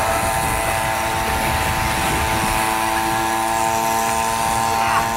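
A motor running steadily, a hum of several held tones over a low rumble.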